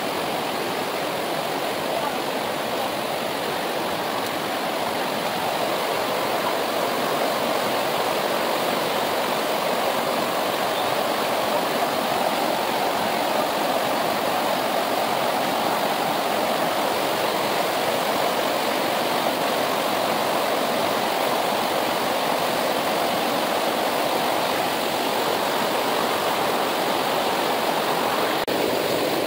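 Fast-flowing Himalayan river water rushing steadily, a constant even noise with no breaks.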